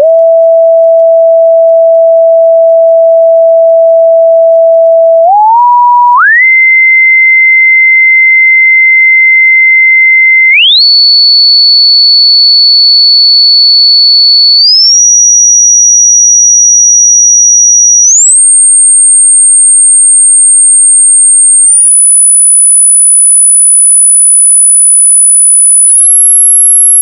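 Loud pure sine test tone for a hearing test, stepping up in pitch: it holds a mid tone for about five seconds, then glides quickly up to a new, higher held tone seven times, every few seconds, ending as a very high, thin whistle.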